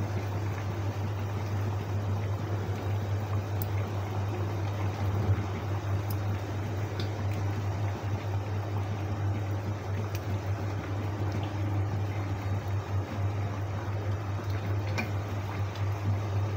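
Fish broth simmering and bubbling in a wok over a gas burner, with a steady low hum underneath and a few faint ticks.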